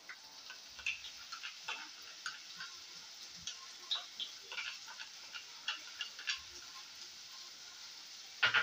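Soft, irregular ticks and light crackle from a frying pan of ground beef cooking on a gas burner while tomato paste is scraped into it with a wooden spoon, with a louder clatter near the end.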